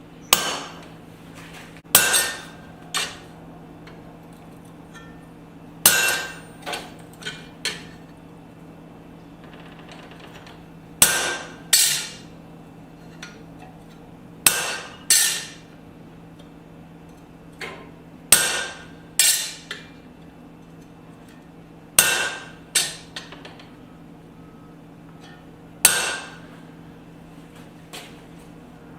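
Blacksmith's hammer striking a steel cross blank on an anvil: sharp ringing blows in groups of two or three, every three to four seconds, over a steady low hum.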